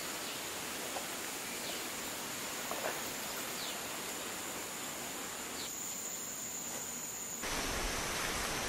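Steady, high-pitched buzzing of an insect chorus in tropical vegetation, with a few faint short chirps over it in the first seconds. The background changes abruptly twice near the end.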